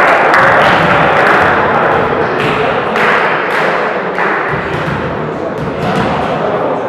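Crowd noise in a volleyball hall dying away after a point, with several sharp thuds scattered through it.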